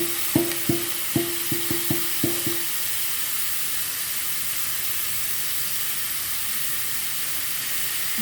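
Food sizzling steadily in a hot frying pan while it is stir-fried. In the first two and a half seconds a utensil raps against the pan about eight times in quick succession, each tap ringing briefly.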